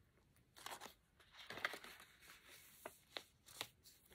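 Faint rustling of a handmade junk journal's cardstock pages being handled and turned, with a louder rustle about a second and a half in and a few light taps near the end.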